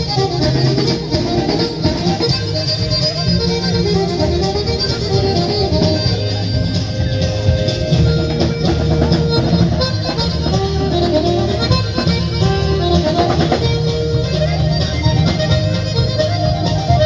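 Traditional Irish music played on melody instruments over a strumming guitar, running on steadily without a break.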